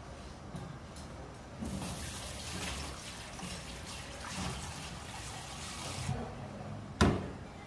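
Kitchen faucet spraying water into a bowl of food being rinsed by hand. The water starts about one and a half seconds in and stops around six seconds, followed by one sharp knock about seven seconds in, the loudest sound.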